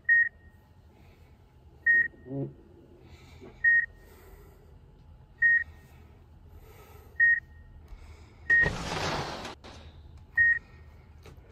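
Heart-rate monitor beeping in an animated cartoon: seven short, high, single-pitch beeps, about one every 1.8 seconds. Near the end a rush of noise lasts about a second.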